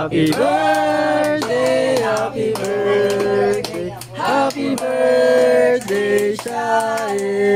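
A group of people singing a birthday song together, with hand claps.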